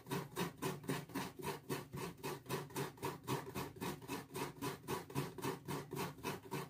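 Half a coconut scraped by hand on a serrated coconut scraper (chirava), its white flesh rasped out of the shell in rhythmic strokes, about five a second.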